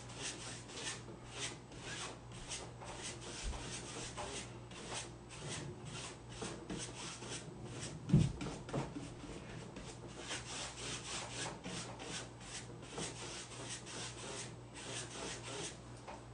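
Quick rhythmic rubbing strokes, about two or three a second, of a hand-held tool worked back and forth over decoupage tissue paper on a tabletop. There is a single knock about eight seconds in.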